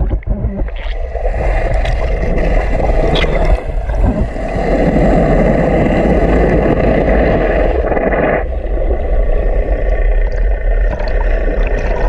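Boat engine and propeller heard underwater, a steady muffled drone with rushing water, heaviest from about four seconds in until about eight and a half seconds in.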